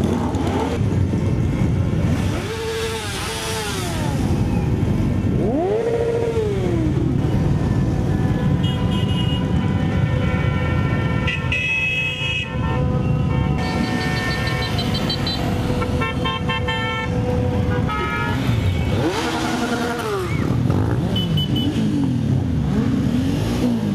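A column of motorcycles riding past, engines running and rising then falling in pitch as bikes go by. Vehicle horns honk repeatedly, mostly in the second half.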